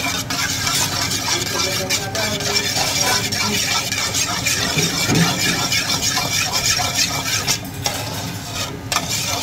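Metal spoon stirring a thick mix of sauces in a metal mixing bowl, scraping and clinking against the bowl with continual strokes.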